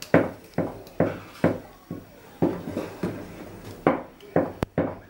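Thick maize meal porridge being beaten hard with a spoon in a metal pot: a run of rhythmic slaps and knocks, about two a second, as the porridge is worked to keep it free of lumps.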